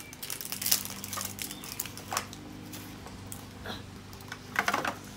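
Plastic wrapping crinkling and tearing as 5 Surprise toy capsule balls are peeled open by hand, in scattered short crackles and clicks over a steady low hum.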